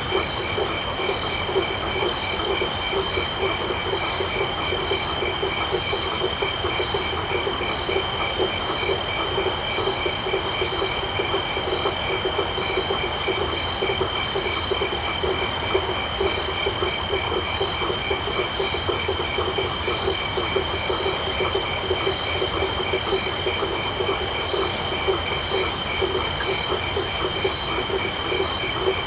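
Night chorus of frogs and crickets: frogs calling in a fast, continuous pulsing trill, over several layers of steady high-pitched cricket chirring.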